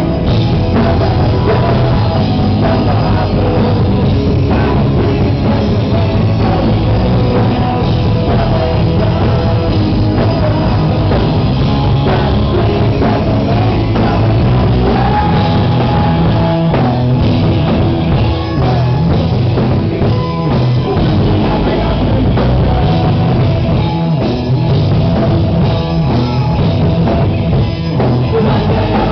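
Rock band playing live, with a drum kit keeping a steady beat under the full band.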